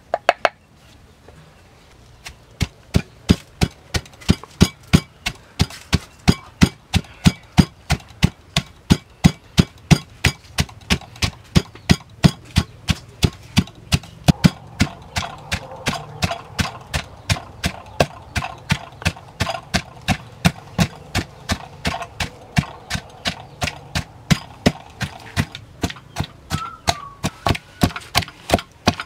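Wooden pestle pounding fresh chilies and salt in a deep wooden mortar, grinding them into a chili sauce paste. A couple of strokes, a short pause, then a steady beat of about three strokes a second.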